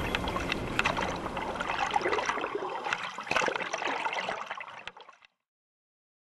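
Water trickling and gurgling, full of small drips and splashes, fading away and stopping about five seconds in. Then dead silence.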